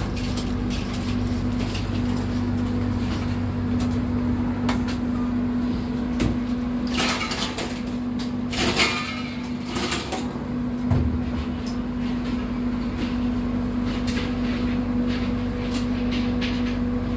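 Steady hum inside a passenger train carriage, with a few seconds of rustling and clattering about halfway through.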